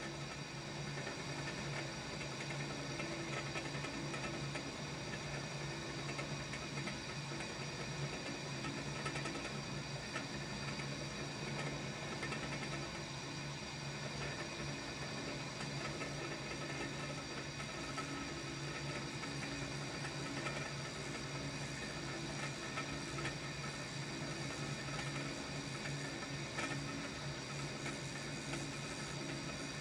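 Shoptask lathe-mill combo's mill spindle running steadily at about 600 RPM with a boring head, a steady hum and gear whine while the carbide boring tool is fed down by hand, taking a light cut in the bore of a metal ring.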